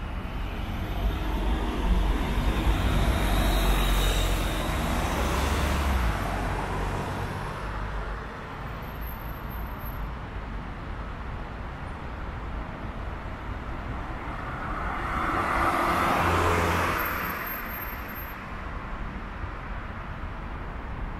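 City road traffic at an intersection. Vehicles moving off make a low engine rumble for about the first six seconds, and another vehicle passes about fifteen seconds in, swelling and then fading.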